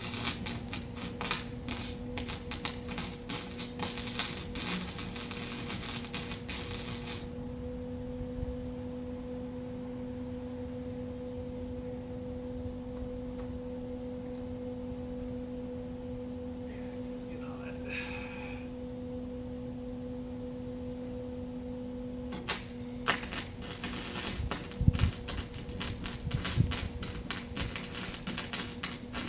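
Electric arc welding joining steel cattle panels: a dense, irregular crackle of the arc for about seven seconds, then a pause with only a steady electrical hum, and the crackle starting again about 22 seconds in and running on.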